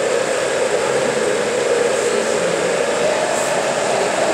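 Countertop blender running steadily, blending a milky liquid in its jar.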